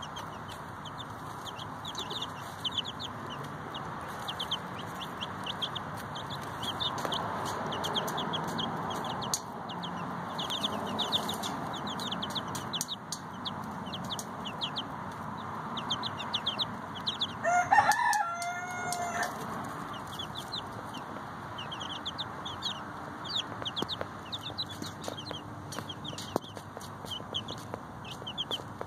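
Chicks peeping continually in short high chirps while the mother hen clucks softly among them. About eighteen seconds in a rooster crows once, the loudest sound.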